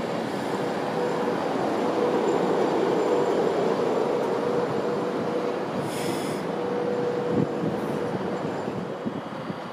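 Avanti West Coast Class 390 Pendolino electric train running along the platform: a steady rumble of wheels on rail with a steady whine. A brief high hiss comes about six seconds in and a short knock about a second later.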